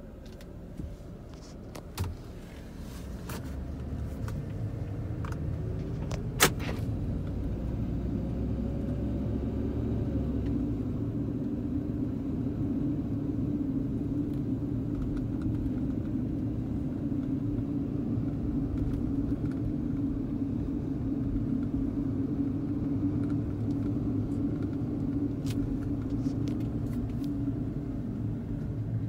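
Car running at low speed, heard from inside the cabin: a steady low engine and road drone that grows louder over the first several seconds, then holds steady. A sharp click sounds about six seconds in.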